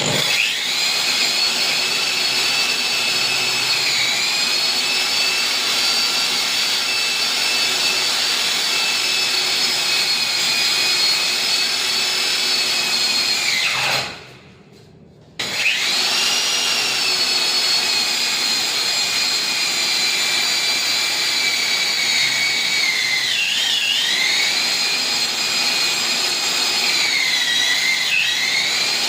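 Electric core-cutting drill running with a high whine. About halfway through it winds down to a stop, then starts again, and its pitch dips briefly twice near the end.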